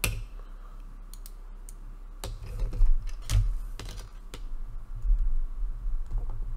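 Small hard-plastic toy-kit parts clicking and tapping as roll-cage pieces are handled and pushed together: a sharp knock at the start, then scattered clicks from about two seconds in, over a faint low hum.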